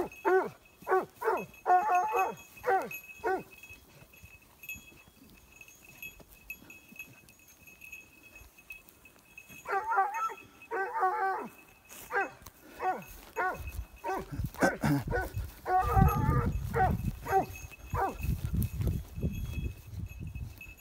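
Dog yelping and whining in repeated short, high calls, some in quick clusters, as it works a scent in the brush. A low rumble runs under the calls in the second half.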